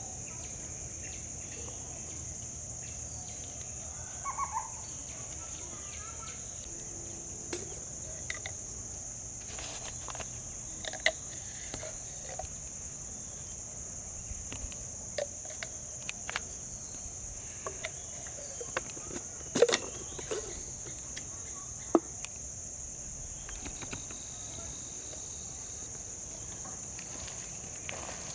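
Steady high-pitched insect chorus, with scattered sharp clicks and knocks, the loudest about two-thirds of the way through.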